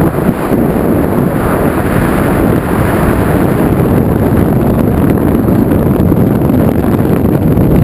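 Loud wind rushing over the camera microphone in tandem skydiving freefall, the pair stabilised under a drogue chute.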